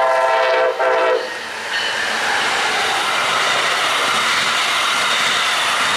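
Brightline Siemens Charger SC-44 passenger train's horn sounding two blasts: a long one ending just under a second in, and a short one right after it. This is followed by the steady rush and rail noise of the trainset passing close by.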